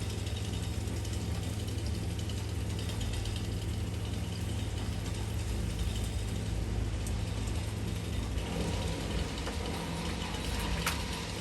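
An engine idling steadily with a low, even hum, over the hiss of heavy rain. One sharp click near the end.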